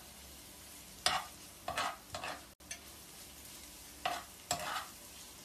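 A spatula stirring grated carrot and beetroot frying in oil in a frying pan: about five short scraping strokes over a steady sizzle.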